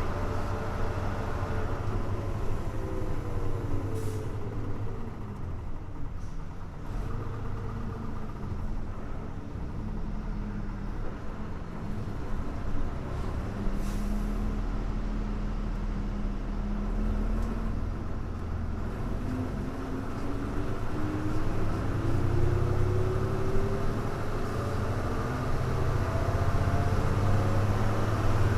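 Hino Blue Ribbon U-HU2MLAA city bus engine heard from inside the bus: its note falls as the bus slows, holds low and steady for about ten seconds, then climbs again as the bus accelerates away. Two short air hisses come from the brakes, one about four seconds in and one about fourteen seconds in.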